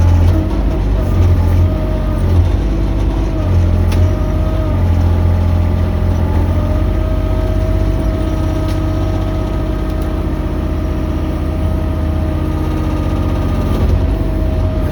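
Mini excavator's engine running steadily under load, with a steady whine over the engine note; the low engine throb is heavier in the first few seconds.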